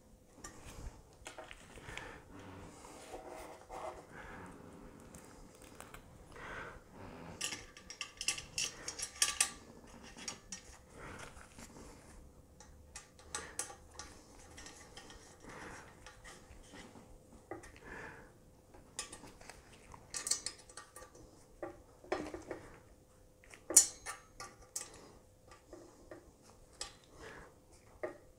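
Light metallic clicks and clinks as small screws and a hex key are handled and worked at the clamp of an aluminium AR-15 free-float handguard being fitted over the barrel nut. The clinks come irregularly, with a busier cluster about a third of the way in and one sharp clink, the loudest, late on.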